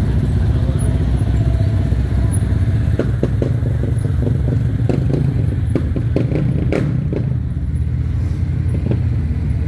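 A motor vehicle's engine running close by, a deep steady rumble, with a run of clicks and knocks between about three and seven seconds in.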